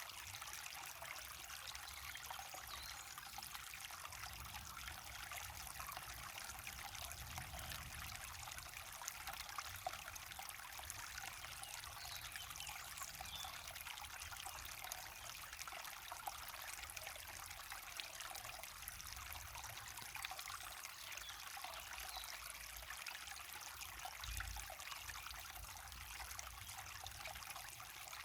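Small waterfall: water falling and trickling steadily, a fine even splashing hiss with little depth to it.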